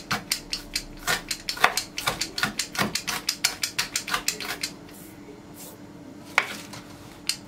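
Kitchen knife finely chopping dill on a wooden cutting board: a fast, even run of quick strokes, several a second, that stops about two-thirds of the way in. A single sharp knock follows near the end.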